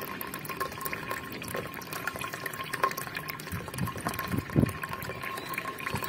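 Water trickling steadily from a float-ball valve into a solar water heater's inlet tank, set to a low flow. The tank is filling toward the level where the float ball shuts the valve.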